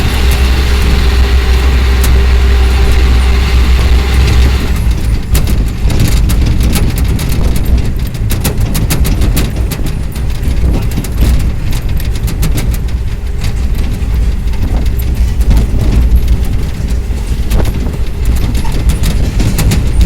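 Loud, heavy rumble of a motor vehicle. About five seconds in it changes abruptly to a rougher rumble full of rapid clicks and crackles.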